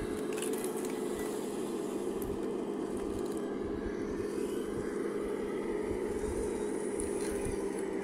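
Radio-controlled hydraulic excavator's pump running with a steady hum. About half a second to a second in, its bucket tips gravel into an RC dump truck, and the stones crackle and scrape.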